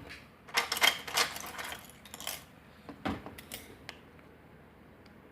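Small metal parts of a euro cylinder lock and its tools clinking and rattling as they are handled, a busy run of clicks in the first couple of seconds and a few sharper clicks around three seconds in.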